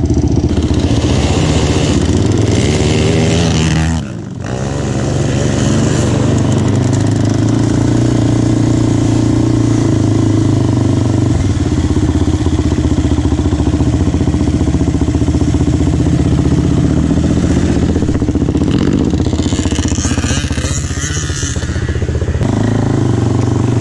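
Can-Am DS 450 sport quad's single-cylinder four-stroke engine running as it is ridden, its pitch rising and falling with the throttle, with a brief drop in engine sound about four seconds in.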